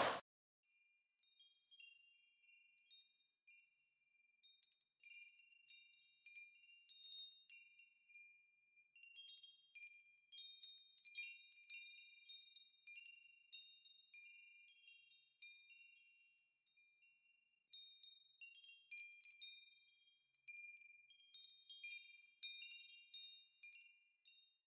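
Rushing flood water cuts off right at the start. What follows is faint, sparse tinkling of chimes: scattered short high ringing notes that come in loose clusters.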